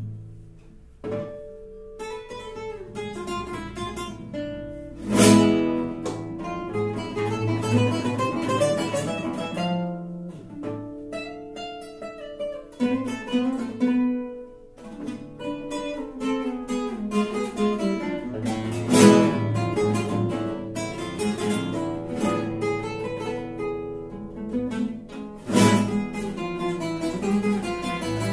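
Duet of two nylon-string classical guitars playing, plucked melody over bass notes, with a few sharp, loud strummed chords about five seconds in and twice more in the second half.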